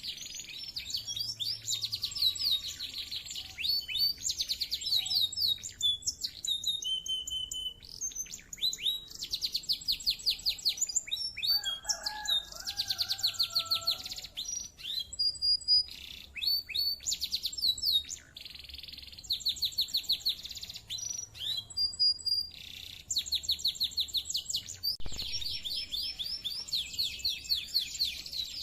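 Domestic canary singing a long, vigorous song of rapid high trills and rolls, with only brief pauses between phrases.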